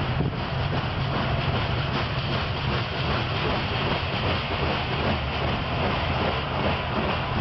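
Loaded covered hopper cars of a grain train rolling past on the rails: a steady, even rumble of wheels on track with no break or change.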